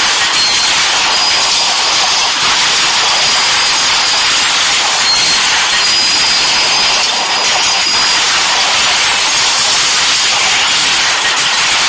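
Train sound effect: a loud, steady hissing rush with no let-up, with a thin high squeal coming in faintly twice.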